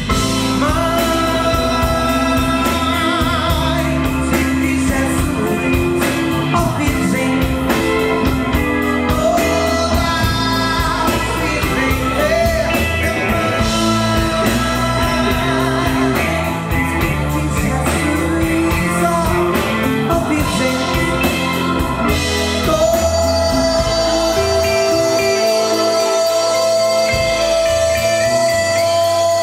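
A live band playing Brazilian popular music: electric guitar, bass, keyboard and drums, with a sung melody over them. A long high note is held through the last several seconds.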